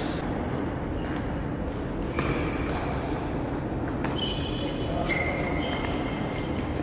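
Table tennis ball clicking off rackets and the table during a rally, a few sharp hits a second or so apart, with short high squeaks of shoes on the hall floor from about two seconds in.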